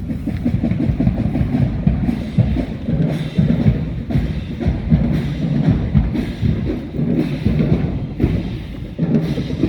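Marching band drumline playing a driving, steady cadence on snare and bass drums. It starts in loud at the opening.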